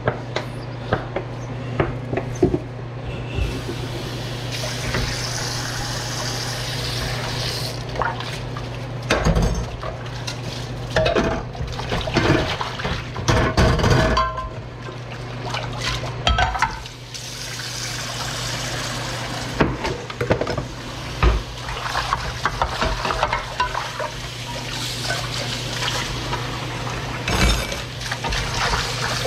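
Dishwashing in a stainless steel sink: tap water running in stretches, with glass dishes clinking and knocking as they are scrubbed and rinsed. A steady low hum runs underneath.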